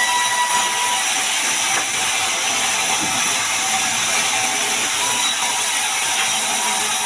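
Band sawmill cutting through a large mahogany log: a steady, loud hissing noise with a faint high whine from the running blade.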